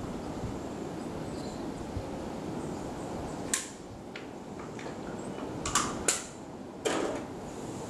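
Steady outdoor background noise with a few sharp clicks in the second half, four of them plain. The last click is heavier, with a short tail.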